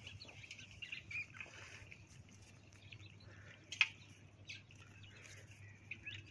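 Faint rural ambience with scattered short bird chirps and a few small clicks and rustles, one sharper click about four seconds in, while a small fish is worked free of a nylon gill net by hand.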